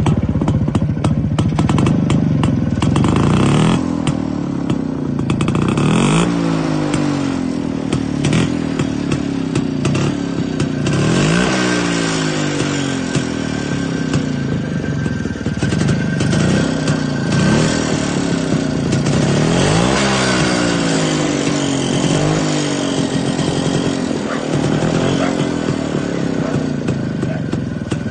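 Yezdi Classic D250's single-cylinder two-stroke engine running and being revved again and again, each blip of the throttle rising in pitch and falling back toward idle.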